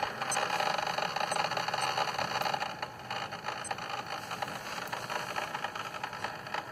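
Keurig K70 brewer's internal pump starting suddenly and running steadily with a rattly buzz while the machine draws water in, before any water reaches the cup.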